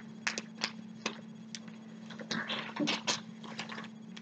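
Fingers picking and scratching at a taped cardboard box: a run of sharp clicks and taps, with short scratchy rustles a little past halfway.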